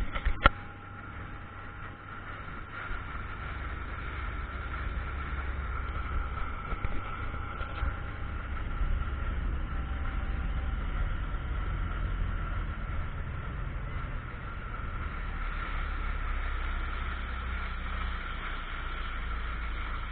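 Motorboat running steadily under way: a constant engine whine over a low rumble of wind and water that builds over the first couple of seconds. A few sharp knocks come at the very start.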